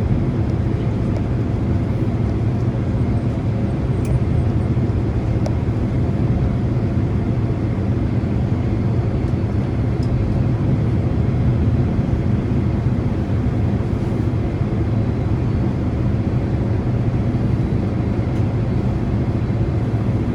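Steady low rumble of cabin noise inside a Boeing 767 taxiing after landing, with the engines at idle.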